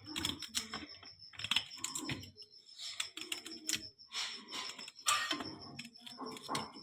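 Knife chopping on a cutting board: irregular light taps and clicks as roasted guava and ginger are cut into small pieces.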